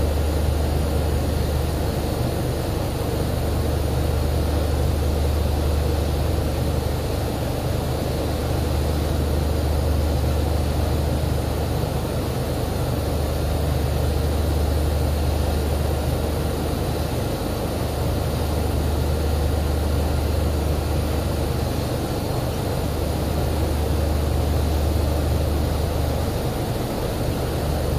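Drilling rig's engines running with a steady low drone and an even hiss over it.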